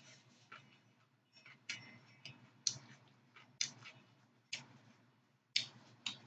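Close-up chewing of a raw-vegetable lettuce wrap, carrot and green pepper strips crunching between the teeth, a sharp crunch about once a second.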